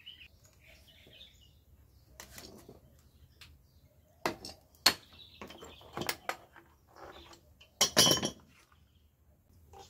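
Sharp clicks and knocks of plastic water pipe and fittings being handled and cut, with a louder, longer scraping burst about eight seconds in. Faint bird chirps near the start.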